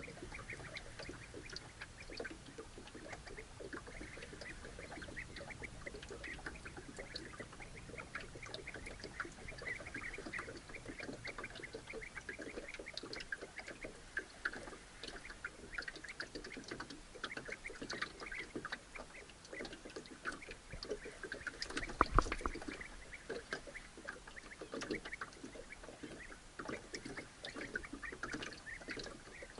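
Outdoor ambience on open water: small waves lapping and ticking against a small aluminium boat, with many short bird calls. A single low thump, the loudest sound, comes about two-thirds of the way through.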